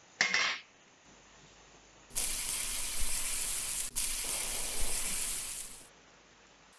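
A short loud scrape as a metal grate is set onto a charcoal grill. Then, from about two seconds in, chicken sizzling on the grate over hot charcoal, with a momentary break near four seconds, fading out near six seconds.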